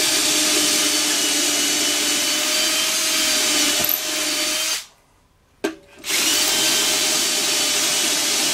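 Cordless drill with a 3/16-inch bit running steadily through the drill collar of a Kreg cabinet hardware jig, boring a handle hole into a drawer front. The drill's whine stops about five seconds in, and after a short pause and a click it runs again.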